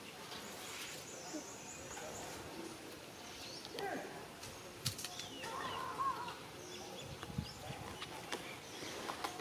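Faint outdoor ambience: light rustling and scattered soft clicks, with a few short chirps about halfway through.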